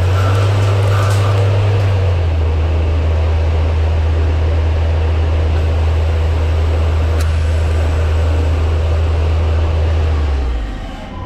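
Mori Seiki ZL-25 CNC lathe running while turning a hub, a loud steady low hum over a hiss of coolant. The hum steps down in pitch about two seconds in and stops near the end, when the machine goes quieter.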